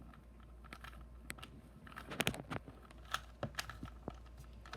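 Plastic Rubik's cube being twisted by hand to scramble it: irregular clicks of the layers turning, with a quick run of them about two seconds in.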